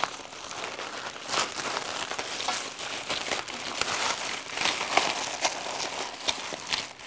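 A plastic bag of hardware crinkling and rustling as it is handled and worked open by hand, in many small irregular crackles.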